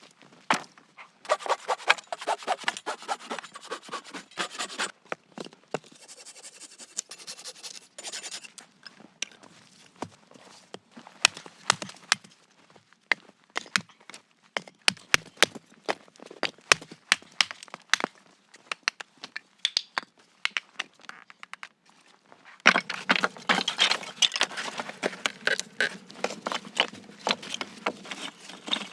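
A busy run of sharp knocks, clicks and scraping from hand work with materials. A denser stretch of scraping and rustling starts about two-thirds of the way through.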